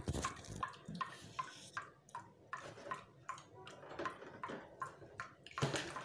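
Metal spoon stirring in a plastic bowl, clicking lightly against its side about three times a second, each click with a short ringing note.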